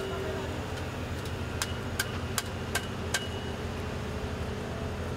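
Heavy construction machine's engine running steadily, with a run of five sharp metallic clicks about 0.4 seconds apart near the middle.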